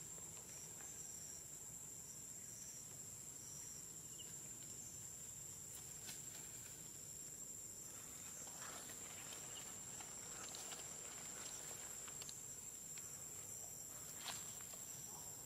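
Steady high-pitched insect drone, with a brief pulsing insect call in the first second or so. Scattered soft rustles of leafy undergrowth come in the second half, and there is one sharp tick near the end.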